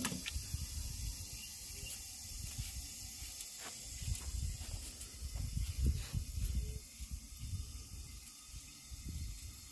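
Knife peeling a raw sweet potato, with a few faint scrapes and clicks, over an uneven low rumble of wind on the microphone and a steady faint hiss.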